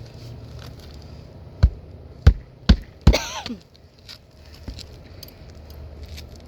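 Four sharp hammer blows in quick succession on a shingle roof, the last one ringing briefly and falling in pitch, while shingles are being pulled and refastened. Low wind rumble on the microphone underneath.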